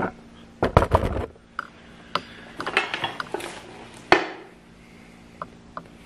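Handling noise: a run of clicks, clinks and knocks, with a heavy bump about a second in and a single sharp knock about four seconds in.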